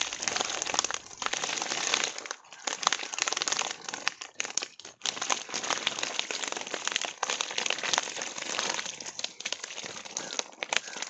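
Tilapia flopping and slapping on a wet concrete floor: a dense, irregular patter of wet slaps and crackles.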